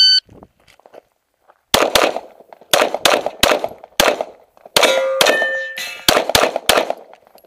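An electronic shot timer gives a short start beep, then a semi-automatic pistol fires about a dozen shots in quick pairs and strings over some five seconds. A brief ringing tone sounds among the shots about five seconds in.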